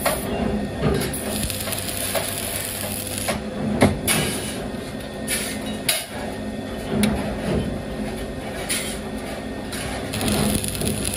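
Light metal clinks and knocks from metal parts being handled, over a steady mechanical hum.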